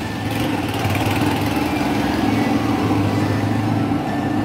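Road traffic, with vehicle engines running steadily.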